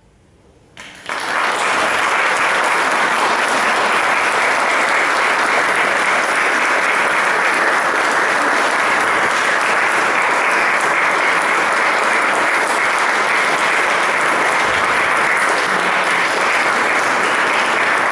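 Audience applauding in a church, starting suddenly about a second in after a short hush and going on steadily at full strength.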